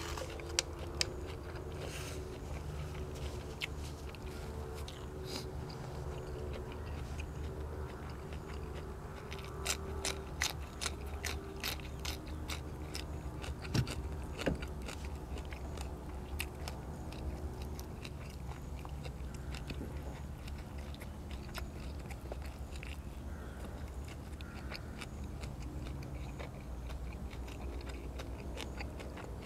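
A person chewing and biting food close to the microphone, eating braised pork ribs with fresh vegetables, with a run of crisp clicks and crunches around the middle. A steady low hum runs underneath.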